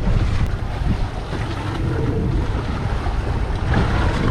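Wind buffeting the microphone on an open fishing boat, a steady low rumble over the wash of sea water.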